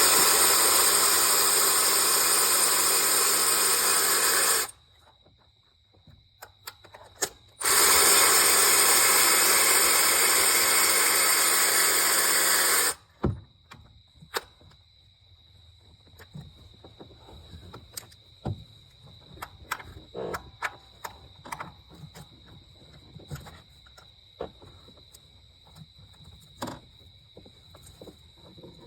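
Compressed-air blow gun hissing in two long blasts of about five seconds each, blowing debris out of the spark plug wells before the plugs are removed. After the blasts come light clicks and knocks of hand tools.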